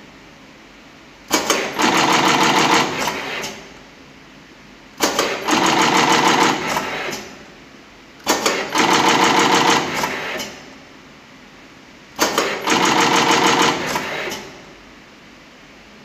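AM208 automatic flat cable crimping machine running through four work cycles a few seconds apart. Each cycle starts with a sharp clack and goes on as about two seconds of rapid mechanical clatter before dying away.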